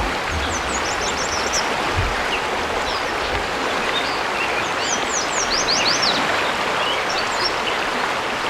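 Eastern kingbird giving two fast runs of high, sharp sputtering call notes, one near the start and a louder one a little past the middle, with scattered single notes between. A steady rushing hiss runs underneath and is louder than the bird.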